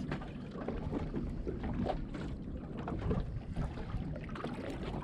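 Water lapping and slapping against the hull of an anchored boat rocking on a swell, with scattered small knocks.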